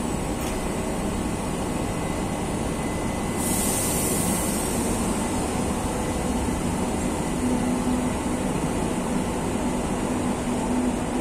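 Madrid Metro train pulling out of the station and rolling away along the platform. A brief high hiss comes about three seconds in, and a steady hum joins the rumble of the train from about halfway.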